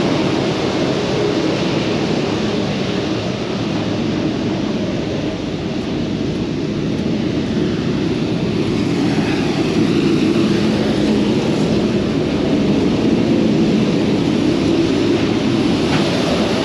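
Semi truck's diesel engine running, a loud steady drone with no breaks.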